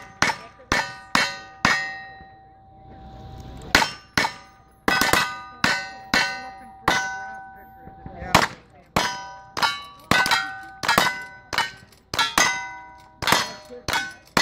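Rapid gunshots, each followed by the ringing clang of a hit steel target. A few shots come first, then a pause of about two seconds, then steady fire at about two shots a second.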